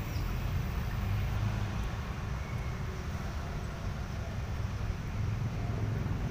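Steady low rumble of road traffic on the flyover overhead.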